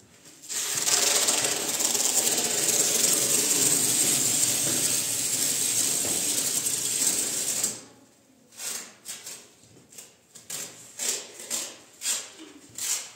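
A small machine runs steadily for about seven seconds and then stops abruptly, followed by a string of short clicks and knocks.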